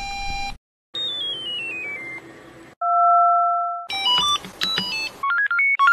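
Early Samsung mobile phone startup and shutdown tones, played one after another. A short steady beep is followed about a second in by a falling run of stepped electronic notes. About three seconds in comes one loud steady tone that fades out, then quick melodies of bleeps that climb near the end.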